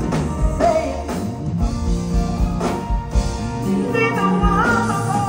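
Live soul ballad: a woman sings into a handheld microphone, her voice gliding between notes over a band with keyboard and a steady beat.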